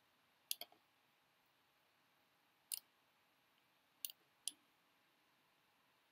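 Computer mouse clicking a handful of times, single sharp clicks and quick pairs spread through otherwise near silence, as shapes are clicked and dragged in the 3D design program.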